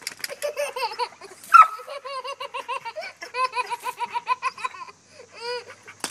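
A baby boy laughing hard in rapid, repeated bursts of high-pitched giggles, with a short pause near the end before one last laugh.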